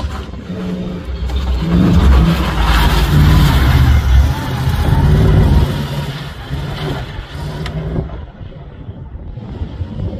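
Comp safari off-road racing vehicle's engine revving hard as it passes close by. It grows loud about two seconds in, with the pitch shifting, then fades away after about six seconds.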